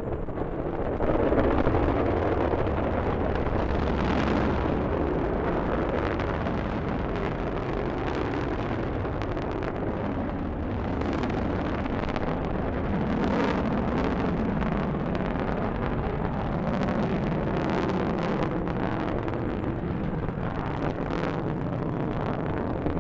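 Delta rocket's engines at liftoff: a steady, rumbling launch roar that gets louder about a second in, with sharp crackles through the second half.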